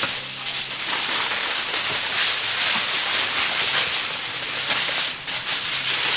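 Aluminium kitchen foil crinkling and rustling without a break as it is folded and pressed tightly around racks of ribs.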